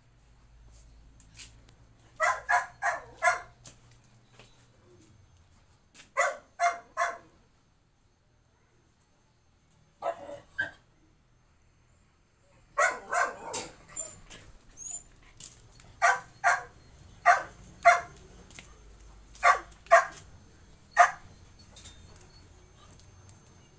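A dog barking: a quick run of four barks about two seconds in, three more around six seconds, then a longer stretch of barks from about thirteen seconds in that thins out to single barks near the end.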